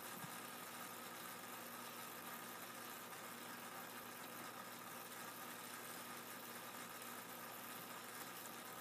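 Faint, steady machine hum with a few unchanging tones over an even hiss.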